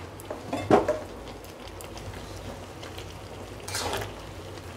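Jaggery syrup with raw mango pieces bubbling at a boil in a kadai, a steady fizzing bubble. A spatula stirs the mix, with two short louder stirring sounds, one under a second in and one near four seconds.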